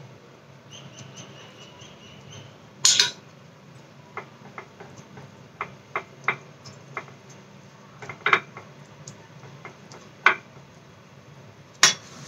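A steel spoon clicking, tapping and scraping against a pan and a glass dish as spice paste is scooped out and spread, with a thin scraping whine lasting about two seconds starting about a second in. Sharper knocks come about three seconds in and near the end.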